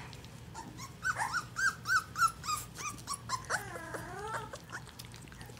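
Young puppies whining: a run of short high squeaks, about four a second, then a longer wavering whine. Soft wet clicks of lapping and smacking at mushy weaning gruel run underneath.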